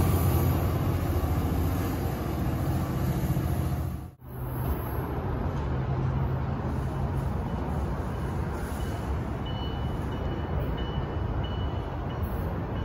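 Tri-Rail diesel locomotive rumbling past with a steady low engine drone. About four seconds in the sound cuts out abruptly, and a steady low rumble follows.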